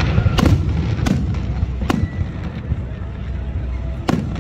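Aerial firework shells bursting overhead: four sharp bangs, three in quick succession in the first two seconds and one more near the end, over a steady low rumble.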